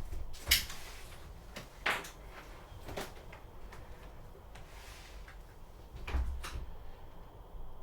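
A handful of short, sharp knocks and clatters a second or more apart, over a faint background hiss.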